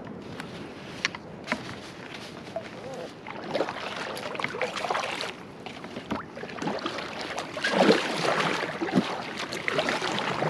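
Kayak paddle strokes splashing in sea water, coming in swells a couple of seconds long and loudest near the end. A few sharp clicks come in the first two seconds.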